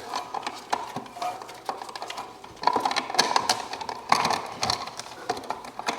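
Plastic smoke detector housing being worked onto its ceiling mounting bracket by hand: scattered light clicks and knocks, with two short scraping rattles near the middle.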